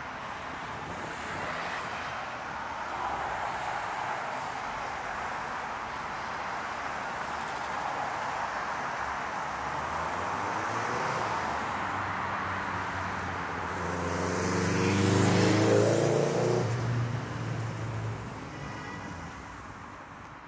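Downtown street traffic with a steady hum, then a motor vehicle's engine growing louder and rising in pitch as it passes close, loudest about three quarters of the way through, then fading.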